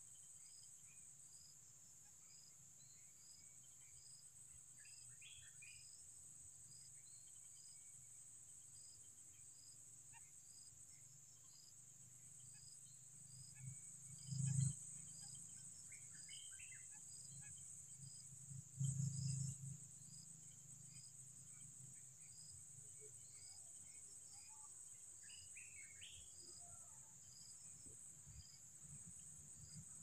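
Faint, steady high drone of insects with a regular pulsing chirp, and a few short bird chirps scattered through. Two brief louder bumps come about halfway through, a few seconds apart.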